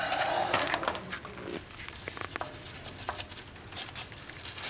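Light clicks and scrapes of hand work on small metal parts, with a short rubbing sound in the first second or so and scattered small clicks after.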